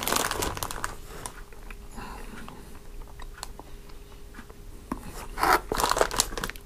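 Plastic snack wrappers crinkling as they are handled, in a burst at the start and a louder burst about five to six seconds in, with small rustles and clicks between.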